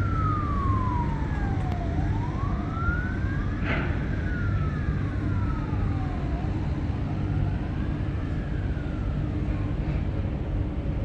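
A siren wailing in slow falling and rising sweeps, about every four to five seconds, over a steady low rumble.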